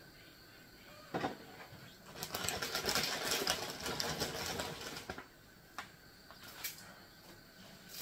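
Plastic bag of dried noodles crinkling and rustling as hands reach in and pull out noodles. A single knock comes about a second in, and a couple of light clicks near the end.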